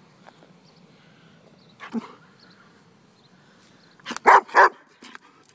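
German shepherd barking: one bark about two seconds in, then a quick pair of loud barks near the end.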